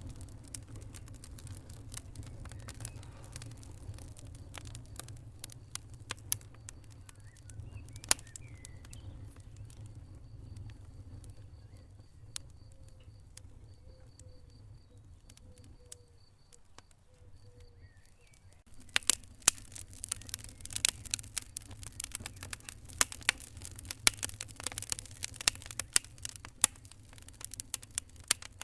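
Wood fire crackling over a low steady rumble: scattered sharp pops, thinning out in the middle, then a dense run of loud crackles about two-thirds of the way through.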